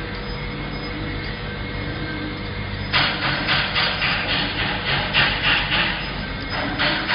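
Split-type colloid mill running with a steady electric-motor hum. About three seconds in, a rhythmic rasping scrape starts, about three strokes a second and louder than the hum, as the handle-fitted adjusting ring on the stainless-steel grinding head is worked by hand.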